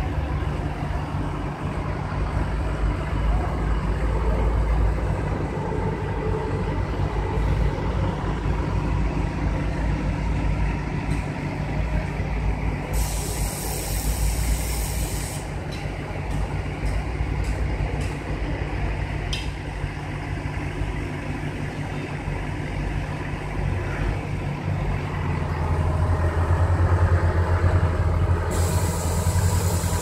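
Truck crane's diesel engine running steadily, picking up and running harder about four fifths of the way through. Two hisses of released air cut across it, one lasting a couple of seconds about halfway through and another near the end, with a few light clicks in between.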